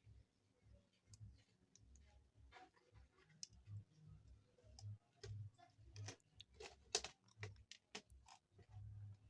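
Faint, scattered clicks and taps of small plastic phone parts and tools being handled while a keypad mobile phone is taken apart. The clicks come thicker and louder in the second half, the sharpest about seven seconds in.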